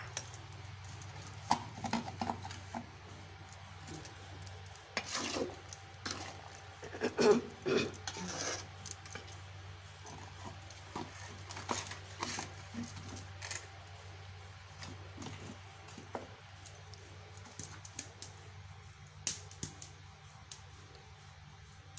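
Metal spatula scraping and knocking against an aluminium bowl as cut raw mango pieces are stirred in their juice, in irregular strokes that are loudest about seven seconds in, over a steady low hum.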